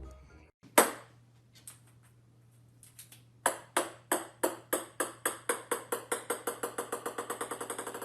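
A single sharp tap, then a run of sharp taps on a hard surface that come faster and faster and fade, the pattern of a small hard ball bouncing to rest. A faint low hum runs underneath.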